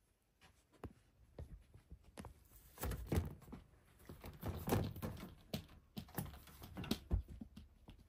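Cats scrabbling at and bumping against a board and wire cage: a quick, irregular run of knocks, taps and thumps, busiest from about three seconds in.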